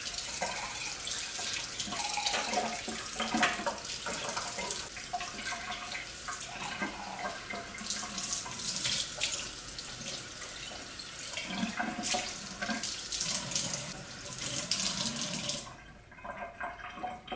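Kitchen faucet running onto a whole raw chicken being rinsed in the sink, the water splashing unevenly as hands turn and rub the bird. The splashing stops abruptly near the end.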